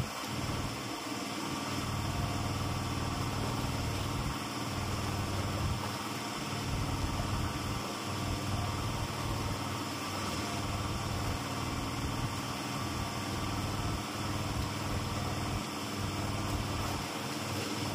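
A small engine running steadily, an even low hum with a constant hiss over it.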